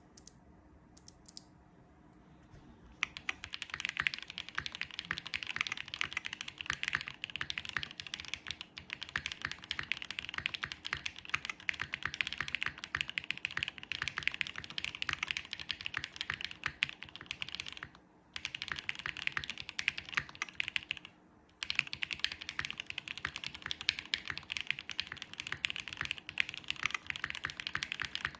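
Mode Sonnet custom mechanical keyboard typed on at speed. It has a carbon-fibre plate with plate foam, lubed Bolsa Supply Zaku linear switches and GMK keycaps. A few separate keystrokes at first, then a steady fast run of key clicks about three seconds in, with two short pauses near the middle.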